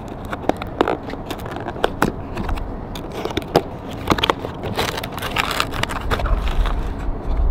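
Cardboard box being handled and opened by hand: a run of small clicks, taps and crackles as the lid and inner flaps are lifted. A low rumble builds near the end.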